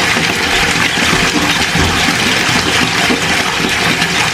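Bathtub tap running steadily into the water.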